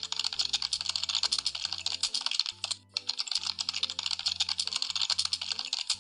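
Computer keyboard typing sound effect: a rapid, continuous run of key clicks that breaks off for a moment about three seconds in and then resumes. Soft background music plays underneath.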